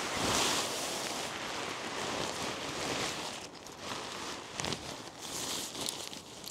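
Rustling of nylon hammock fabric and webbing straps being handled, with a few light knocks in the second half.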